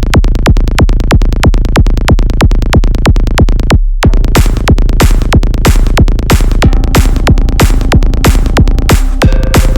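Electronic dance music with a fast, steady drum-machine kick beat. The beat drops out briefly about four seconds in, and when it returns a hissing high layer joins it. Held synth tones come in after that, with a new, higher one near the end.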